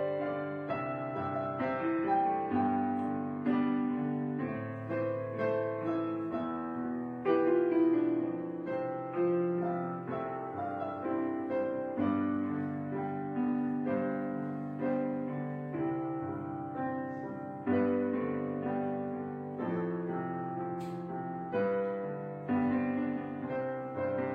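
Background music: solo piano playing chords and a melody.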